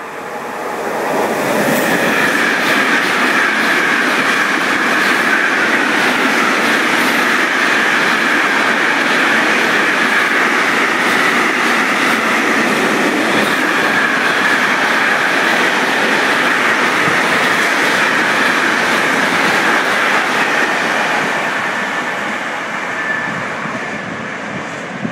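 Freight train hauled by an E483 electric locomotive passing through at speed: the locomotive arrives within the first couple of seconds, then a long string of intermodal wagons goes by with the steady noise of wheels on rail and a rhythmic clickety-clack over the rail joints, fading away over the last few seconds as the end of the train passes.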